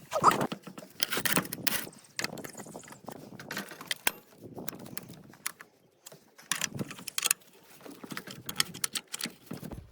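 Irregular metallic clinks and rattles of a chainsaw chain and bar being handled and fitted, busiest in the first couple of seconds and again about halfway through.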